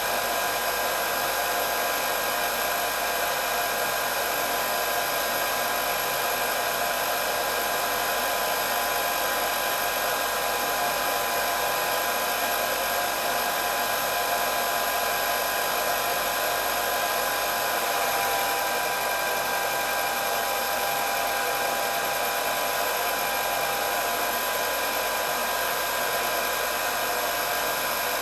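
Hair dryer running continuously: a steady rush of blown air with a constant high motor whine.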